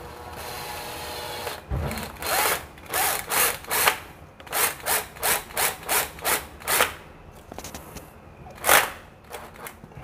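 Makita cordless drill-driver driving a screw into a wall plug to fix a doorbell base plate. The motor runs steadily for under two seconds, then comes in a quick run of short bursts, about two to three a second, with one last burst near the end.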